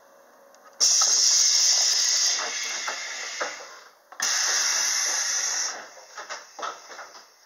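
Compressed air hissing out of a 115 series electric train's pneumatic system in two loud bursts, about a second in and about four seconds in, each lasting one to two seconds. A few short knocks and clicks come between and after them.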